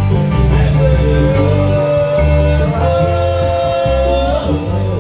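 Live bluegrass band playing, with banjo, fiddle, electric bass and mandolin over a pulsing bass line, and singing. One long note is held from about a second in until near the end.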